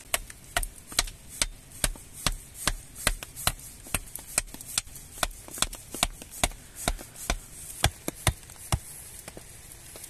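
A hatchet head striking the top of a forked wooden stake again and again, driving it into soft earth: a steady run of sharp knocks, about two and a half a second, stopping near the end.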